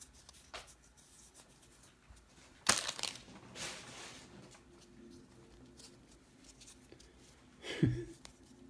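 A foil trading-card pack torn open: a sharp rip about three seconds in, then softer crinkling of the wrapper, and another short noise near the end.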